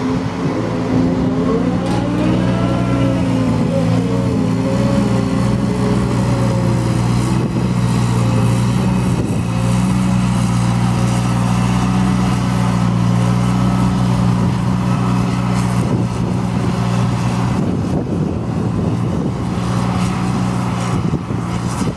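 Liebherr L538 wheel loader's diesel engine working hard as it drives up and across a grass silage clamp. The revs rise and fall over the first few seconds, then hold steady.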